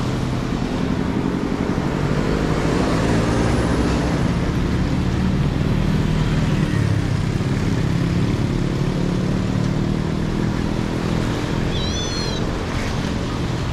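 Street traffic: motor vehicle engines running past, swelling a couple of seconds in and easing off later, with a short high chirp near the end.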